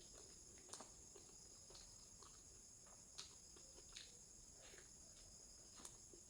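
Near silence: faint, irregular clicks and smacks of someone eating egg curry with rice, over a steady high chirring of crickets.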